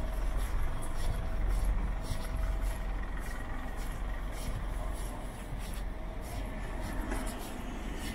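Footsteps of a person walking on pavement, about two a second, over a steady low rumble of street ambience.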